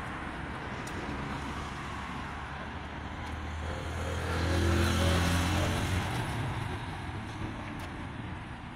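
Road traffic on a busy street, with one motor vehicle passing close about halfway through: its engine hum and tyre noise swell to a peak, then fade.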